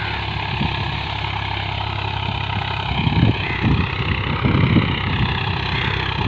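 Swaraj 735 FE tractor's three-cylinder diesel engine running steadily under load, pulling a disc harrow through ploughed soil in second high gear. Uneven low rumbles join the steady drone from about three seconds in.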